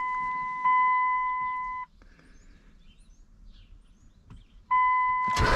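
A truck's dashboard warning tone sounds steadily, restarting a couple of times, then stops about two seconds in, leaving faint bird chirps. The tone comes back near the end, and the truck's engine starts just before the end.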